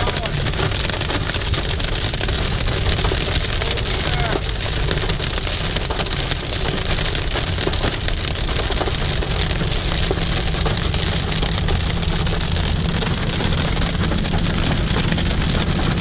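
Heavy rain hitting the windshield and roof of a Ram pickup, heard from inside the cab as a steady hiss over the low, even rumble of the truck driving on the highway.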